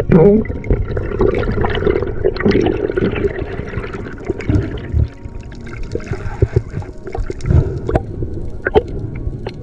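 Water sloshing and gurgling close to the microphone, with scattered clicks and a sudden burst at the start.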